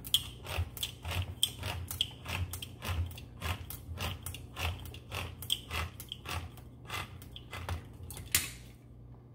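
Hand-held manual can opener cutting around the lid of a steel tin can: a crunching click with each turn of the crank, about two to three a second, stopping about eight seconds in as the lid is cut free.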